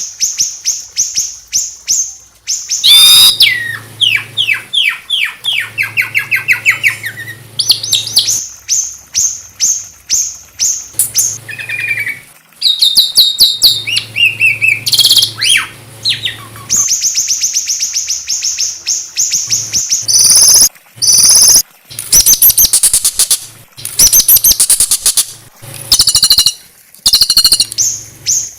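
Small songbirds singing in high-pitched trills and runs of fast, sharply repeated chirps, phrase after phrase with sudden breaks between them.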